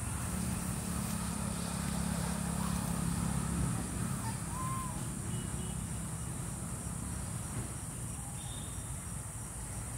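Outdoor ambience: a steady low rumble with a low hum over the first few seconds, a constant high insect drone, and a couple of short bird chirps about halfway through.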